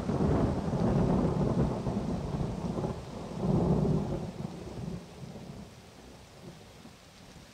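Thunderstorm ambience: deep rolling thunder over steady rain. The rumble swells near the start and again about halfway, then dies away, leaving only the fainter hiss of rain.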